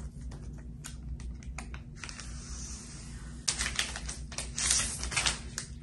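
Plastic packaging being handled and unwrapped: a run of light clicks and taps, then a soft hiss, then louder crinkling of a clear plastic sheet in the second half.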